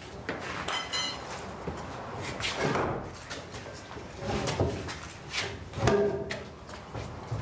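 A heavy wooden crossbar on an old plank gate being lifted and shifted by hand, with repeated knocks and scrapes of wood on wood. Music plays underneath.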